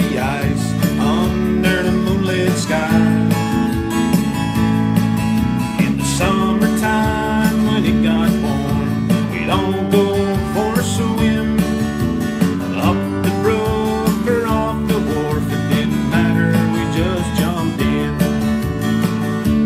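Acoustic guitar played in a country style, a passage of chords with no words.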